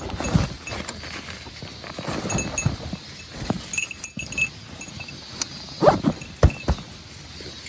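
Irregular handling knocks and thumps with small metallic clinks, the strongest knocks coming in a quick cluster about six seconds in.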